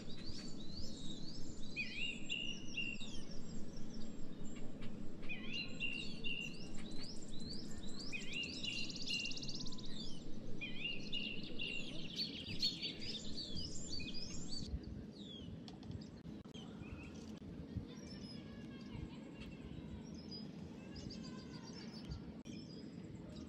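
Wild songbird singing outdoors, repeating a short phrase every two to three seconds: a quick run of falling notes ending on a lower held note. About fifteen seconds in the song goes quieter, leaving fainter birdsong over a steady low background hum.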